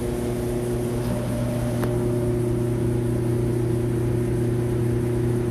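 Steady mechanical hum holding several even tones, with a faint single click about two seconds in.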